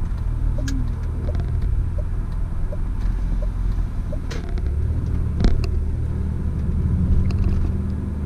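Car driving slowly, heard from inside the cabin: a steady low engine and road rumble. A turn signal ticks about once every 0.7 seconds through the first half and then stops. A single sharp click comes about five seconds in.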